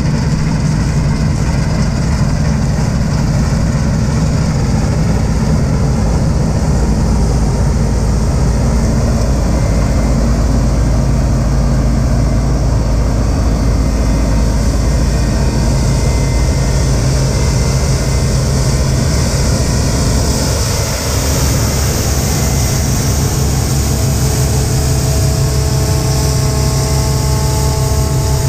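Claas Dominator combine harvester running: a steady heavy engine drone with the whirr of its threshing machinery. About two-thirds through it dips briefly, then a few higher steady whining tones join in as it harvests barley.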